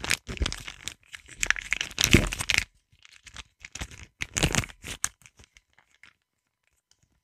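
A small wrapper crinkled and torn right against a sensitive microphone, in irregular bursts of crackling for about five seconds, then quiet.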